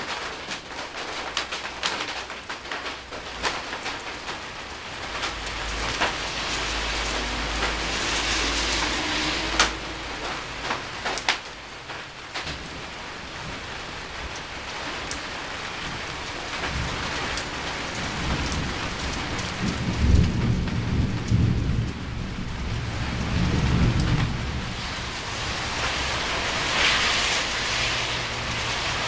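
Steady rain falling, with sharp clicks of drops landing close by. A long roll of thunder rumbles low through the second half, swelling to two peaks.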